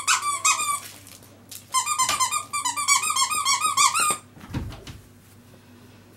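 Rubber squeaker in a dog toy being chewed by a pug puppy, squeaking rapidly about five or six times a second in two runs with a short break about a second in. The squeaking stops after about four seconds, followed by a soft low thud.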